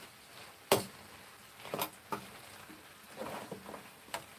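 Cooking utensil tapping and scraping against a frying pan during stir-frying: four short sharp taps, the loudest about a second in.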